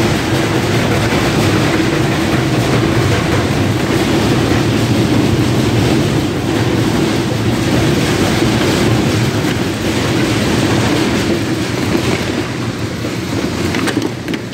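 Frozen-fish processing conveyor line running: loud, steady machinery noise with a rattle and a constant low drone.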